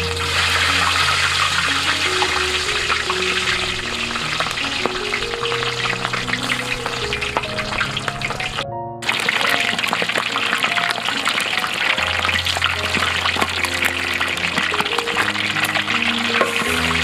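Pig legs deep-frying in a wok of hot oil, a loud, dense sizzle and crackle that jumps up at the start as a piece goes in. The sizzle breaks off for a moment about nine seconds in, then carries on.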